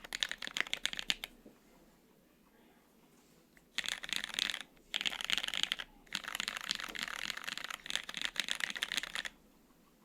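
Typing on a gasket-mounted 75% mechanical keyboard with lubed Hyperglide Cherry MX Black linear switches, an aluminium plate and GMK double-shot ABS keycaps. There is fast typing for about a second, a pause of two to three seconds, then three bursts of rapid keystrokes with short breaks between them, stopping about a second before the end.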